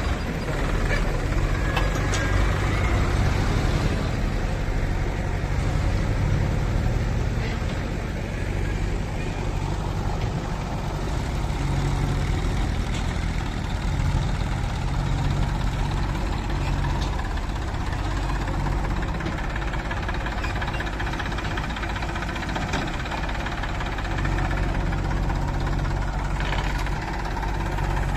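Diesel engine of a JCB 3DX backhoe loader running steadily while it works, with its note shifting a little as the load changes and a few faint knocks.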